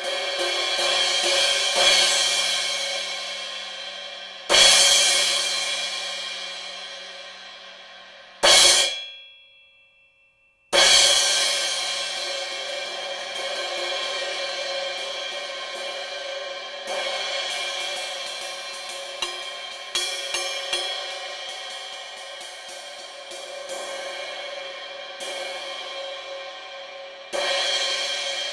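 Synergy Zircon cymbal struck and left to ring with a long, bright wash. There are two big hits, and one hit that dies away within a second or two. Lighter stick taps play over the ringing later on.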